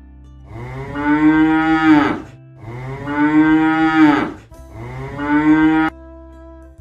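Cow mooing three times in a row: long, loud calls, the third one shorter.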